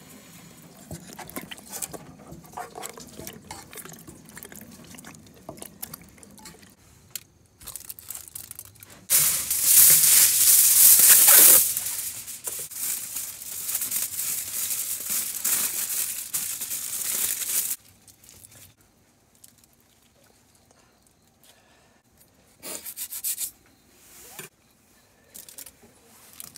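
Aluminium foil torn off and crinkled as it is pressed into a pot, a loud rustling that lasts several seconds near the middle. Before it, quieter rustles and light clicks of hands working a raw chicken in a pot.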